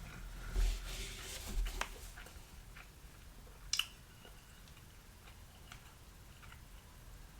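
A person chewing food close to the microphone, with small clicks throughout and one sharp click about four seconds in.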